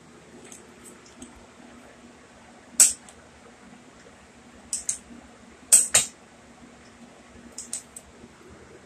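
A few short, sharp clicks and knocks: one about three seconds in, a cluster around five to six seconds, and two more near the end. A faint steady hum runs underneath.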